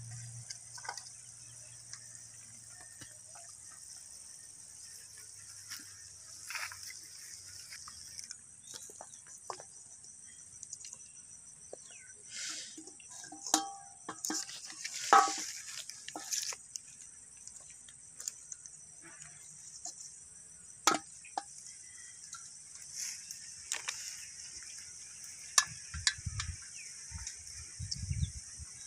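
Steady high-pitched insect chirring, with scattered clinks and scrapes of a wooden spoon against a steel pan and plate as cooked meat is dished out. There are a few low thumps near the end.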